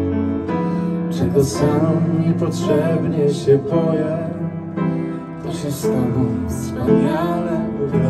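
Live song: an upright piano and a Nord Stage electric keyboard accompany singing voices.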